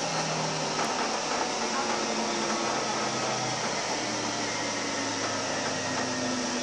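Interior of a Sound Transit Link light rail car running through a tunnel: the steady rumble and hiss of the moving train, with a faint hum that slowly shifts in pitch.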